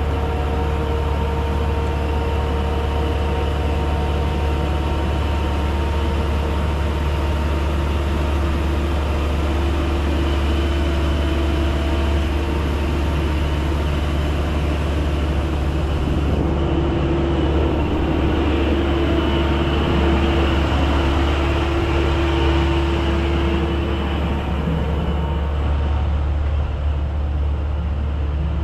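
Engine running steadily at idle, a deep drone with a steady hum over it.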